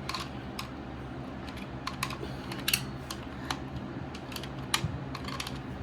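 Irregular light metallic clicks and taps of hand tools working at a dirt bike's oil filter housing as the old oil filter is pried out, over a steady low hum.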